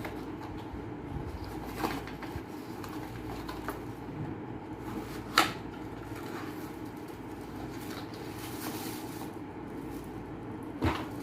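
Laptop accessories and packaging being handled during an unboxing: a few short knocks and clicks, the loudest about five seconds in, over a steady low hum.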